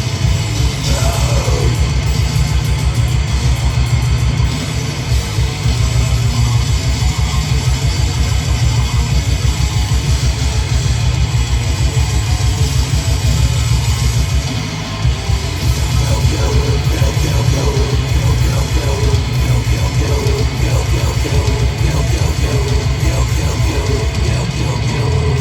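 Metal band playing live: distorted electric guitars over fast, driving drums, loud and dense throughout.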